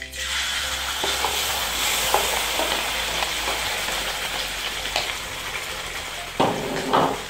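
Blended spice paste of onion, garlic, ginger, galangal and lemongrass sizzling steadily as it lands in hot oil in a wok, the sizzle starting suddenly as the paste goes in. A wooden spatula scrapes it from the bowl, with light clicks and two louder knocks near the end.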